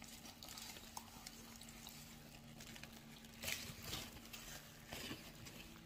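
Faint chewing with a few short crinkles of a paper food wrapper about three and a half, four and five seconds in, over a steady low hum.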